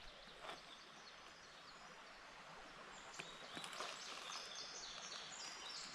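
Faint outdoor ambience: a low steady hiss with small birds chirping faintly from about halfway through, and a couple of light clicks.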